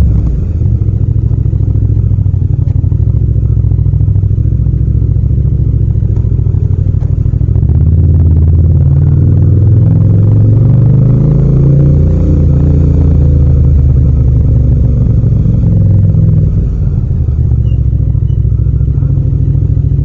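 Yamaha MT-07's 689 cc parallel-twin engine running while riding, its note rising and falling with throttle and gear changes, with a brief dip in level about 17 seconds in.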